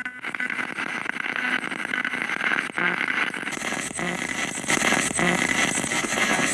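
Spirit box radio scanner sweeping through stations: a steady hiss of static broken by fast clicks and a few short snatches of sound about three, four and five seconds in.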